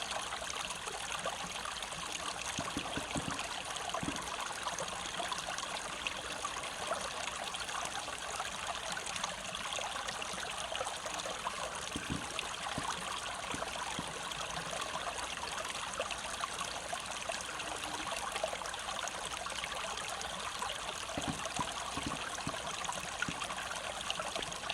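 Small mountain brook flowing, a steady, even rush of running water.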